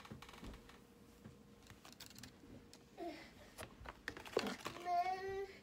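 Light clicks and taps of small objects being handled at close range, with a faint steady hum in the first half. Near the end, a child's voice calls out in one short drawn-out note from farther off.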